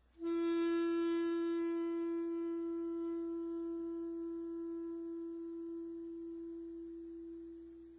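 Alto saxophone holding one long, steady note that starts abruptly and fades slowly over about eight seconds.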